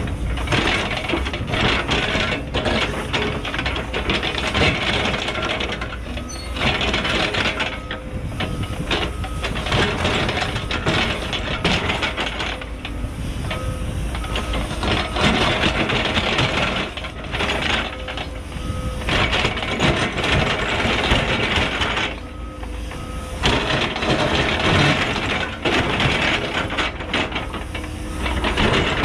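Cat 314E excavator's diesel engine working under load while its ripper shank drags through hard bedrock, giving a rough grinding and scraping of rock. The grinding drops away briefly several times as the ripper is lifted and repositioned, leaving the engine running.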